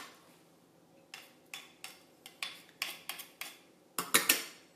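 Hand-held garlic press clicking and clattering as garlic cloves are squeezed through it, a string of short irregular clicks, with a few louder sharp knocks about four seconds in.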